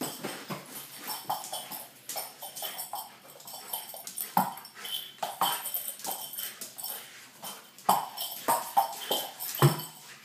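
Irish setter playing on a wooden floor: claws clicking and paws scrabbling in quick, irregular steps as it spins and pounces, with a few short whines.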